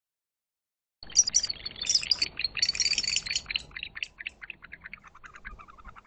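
Barn owls giving a rapid, harsh series of chittering calls during a squabble over the perch. The calls start about a second in, are loudest for the next two seconds, then trail off into softer, lower, more spaced twittering.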